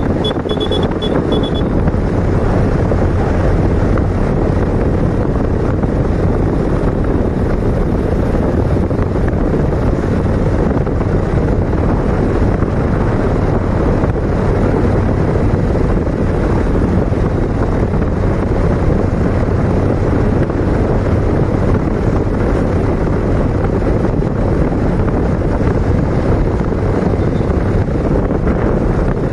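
Wind rushing over the microphone of a moving motorcycle, over the steady hum of its engine at cruising speed. A short run of high beeps sounds in the first second or two.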